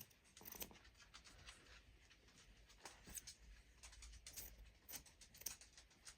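Near silence with faint, scattered clicks and rustling, as of small objects being handled.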